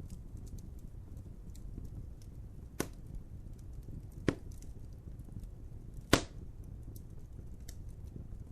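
Wood fire crackling: a low steady rumble of burning logs with light ticking, broken by three sharp pops a second and a half to two seconds apart, the third the loudest.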